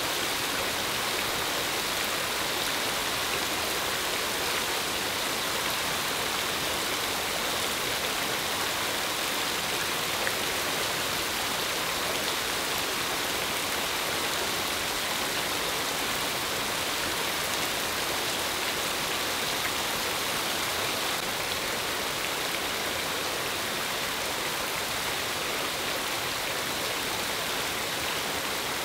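Artificial rain: water falling steadily in many thin streams from overhead bamboo tubes and splashing on a person and the wet rocks below, a steady rain-like hiss.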